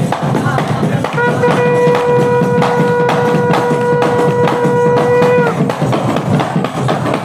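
Qawwali music: a single note held steady for about four seconds over continuous drumming.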